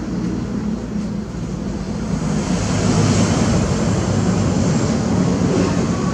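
A running engine gives a steady low rumble, with a hiss that builds about two seconds in and stays up until near the end.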